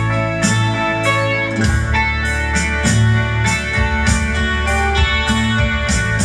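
Instrumental music: a guitar-like melody over held chords, with a beat of regular percussion strikes.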